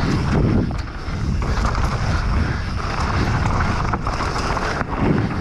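A Specialized Demo downhill mountain bike rolling fast down a dirt trail: steady wind buffeting the helmet-camera microphone over tyre noise and bike rattle, with a few sharp knocks from bumps.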